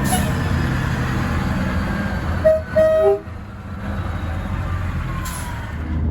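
Semi truck's air horn giving two short blasts about two and a half seconds in, over the steady rumble of passing truck traffic.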